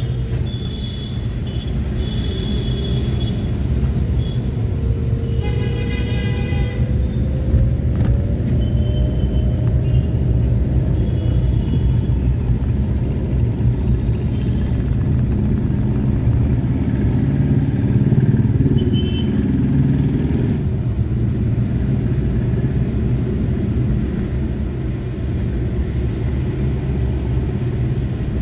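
Car driving on a city road, heard from inside the cabin: a steady low engine and tyre rumble. A vehicle horn sounds for about a second, several seconds in, while a whine slowly rises in pitch.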